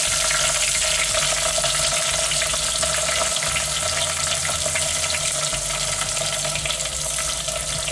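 Chopped tomatoes sizzling in hot sunflower oil with garlic and green chilli in a clay pot: a steady crackling fry that eases a little as it goes, over a steady hum.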